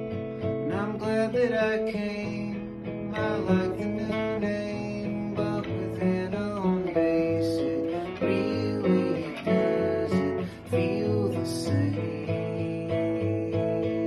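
Steel-string acoustic guitar strummed in a song, with a man singing over it at times.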